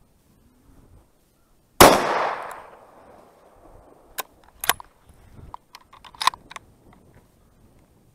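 A single shot from a Browning A-Bolt III bolt-action rifle in .30-06 about two seconds in, with its echo dying away over about a second. A few seconds later, several short sharp metallic clicks as the bolt is worked back and forward.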